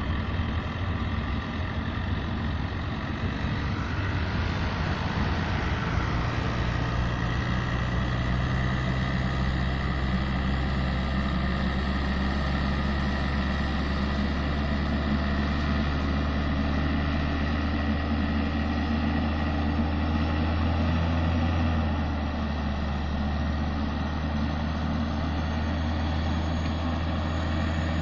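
Diesel locomotive of a sugar cane train running steadily as it hauls a line of loaded cane bins past, a low engine note under a broad rolling rumble.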